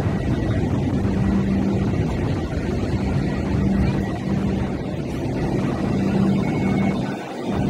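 Hong Kong Light Rail Phase 4 light rail vehicle pulling away from the terminus platform: a steady low electric hum over rumbling, with some wind on the microphone.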